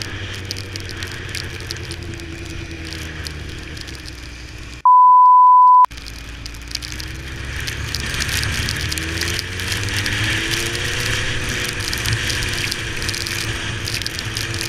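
Honda CBR1000RR's inline-four engine running on the move, its pitch rising and falling with the throttle, under wind and rain noise. About five seconds in, the sound cuts out for a loud, steady one-second beep tone, edited in, before the engine and road noise return.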